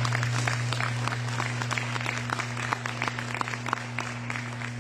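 Audience applauding, a dense patter of clapping that thins and fades out near the end, over a steady low hum.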